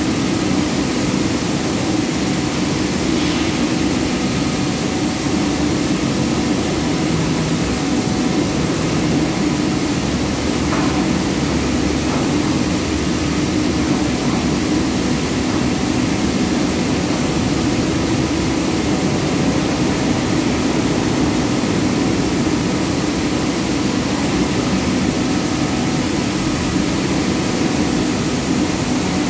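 Palm oil mill processing machinery running: the large rotating steel drum and fruit conveyor of the processing line give a steady, loud industrial drone with a constant low hum and no break.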